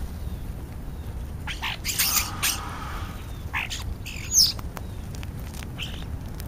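Birds calling: a few short, separate calls, the loudest about two seconds in and a high whistling glide a little past the middle.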